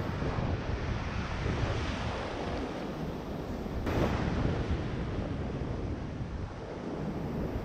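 Ocean surf breaking and washing around the legs in shallow water, with wind buffeting the microphone. A wave surges up louder about four seconds in.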